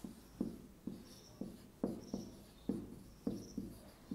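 Marker pen writing on a whiteboard: a run of short squeaky strokes, about two a second, as a word is written out.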